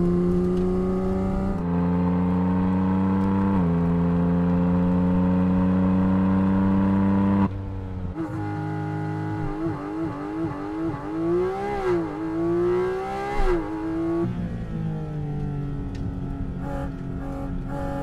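Porsche 718 Cayman GT4 RS's naturally aspirated 4.0-litre flat-six accelerating hard: the revs climb, fall back twice at upshifts and climb again. After about seven seconds it is quieter, with the revs rising and falling quickly several times before settling.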